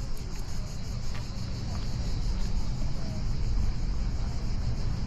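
Outdoor ambience: a low, uneven rumble of wind on the microphone under a steady, high-pitched insect buzz.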